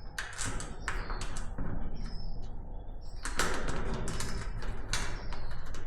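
Irregular clicks, taps and rustles of small parts being handled: a magnet and a plastic zip tie being picked up and fitted to a solar light's cable against the container's steel. Faint short bird chirps come and go behind it.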